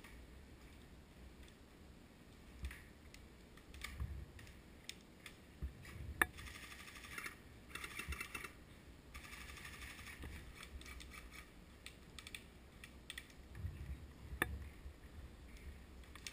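Airsoft guns firing, faint: two spells of fast, dense clicking like bursts from electric airsoft rifles, with scattered single clicks and a few sharper snaps.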